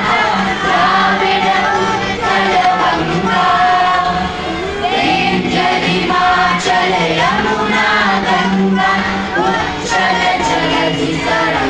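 A group of children singing together.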